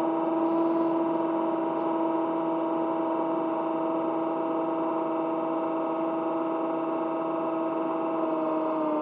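Electric motor and propeller of an AR-900 flying wing running at steady throttle in flight: a steady whine with overtones, easing slightly in pitch near the end.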